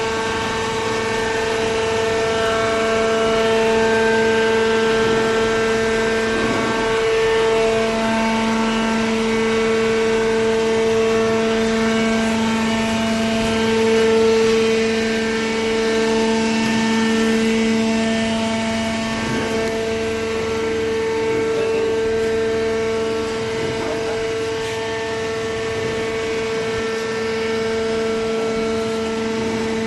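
Small horizontal hydraulic paper baler running, its motor and hydraulic pump giving a steady whine. A lower hum joins in a few seconds in, drops away after about twenty seconds and comes back near the end.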